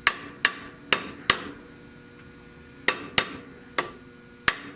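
Hammer striking the original Buick valve-cover screw washers held in a vise, about eight sharp metallic taps in irregular groups, each ringing briefly. The washers are being bowed down so they press the valve cover around the screw.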